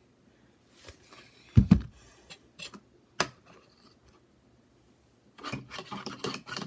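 Tabletop handling sounds: a dull thump about a second and a half in, a sharp click about three seconds in, then from about five and a half seconds a dense run of quick small clicks and crackles.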